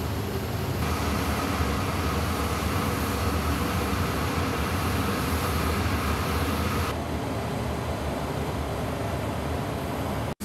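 Steady jet aircraft noise on an airfield ramp: a low rumble under a hiss, with a whine that drops away about seven seconds in. The sound cuts out for an instant just before the end.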